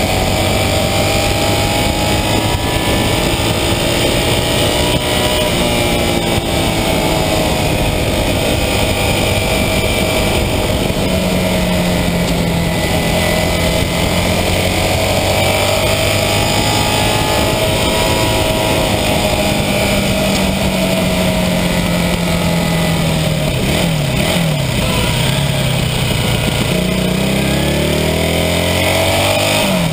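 A 1982 Honda CB400N Superdream's air-cooled parallel-twin engine running on the road, heard from the front fork with wind rushing past. Its note rises and falls with the throttle, drops about three-quarters of the way through, then climbs steeply near the end as the bike accelerates.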